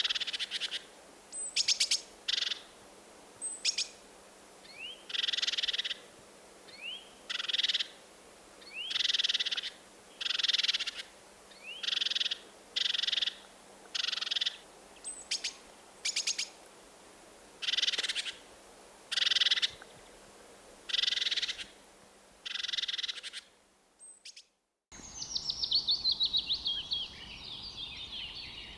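Birds calling: a run of short buzzy calls repeated about every one and a half seconds, some led by a quick rising chirp. Near the end the recording cuts to a different bird singing a quick series of notes that step down in pitch.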